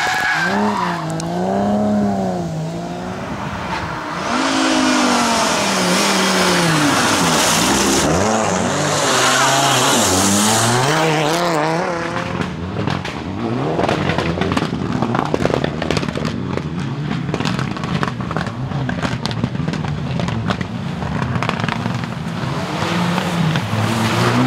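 Rally car engine revving hard, its pitch rising and falling over and over as the throttle is worked through slides, with a loud rushing hiss of tyres and spray from about four to twelve seconds in. From about halfway on, many sharp cracks and clicks sound over the engine.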